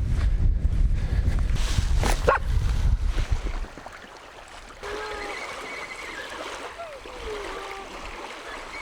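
A dog yips once about two seconds in, over a low rumble of wind on the microphone, then whines in high, wavering tones. It is worked up over a fishing lure being cast and reeled in.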